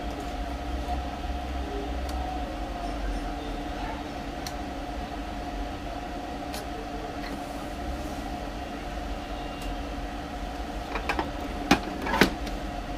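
A steady mechanical hum with two steady tones runs throughout. Near the end come two sharp plastic clacks as the printer's scanner lid is lowered shut onto the body.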